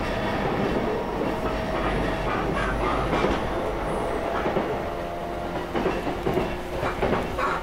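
Electric commuter train running, heard from inside the passenger car: a steady rumble of the car and its wheels on the rails, with a scatter of short clicks and knocks in the second half.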